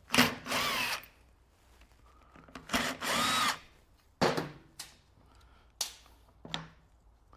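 Electric drill running in two short spurts, just after the start and again around three seconds in, backing out the two screws that hold an angle grinder's gear head; the motor's whine rises and falls with each spurt. A few sharp clicks and knocks of the grinder's parts being handled follow.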